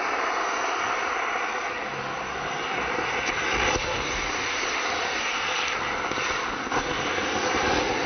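Dozens of Diwali firework rockets burning at once: a steady rushing hiss, with a few sharp cracks in the second half.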